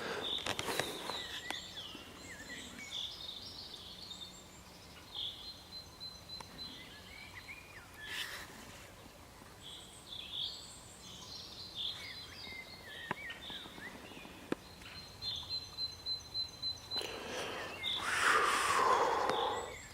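Small birds chirping and calling on and off, many short high notes, with a thin steady high whistle for a while later on. Near the end a louder rushing noise lasts about two seconds.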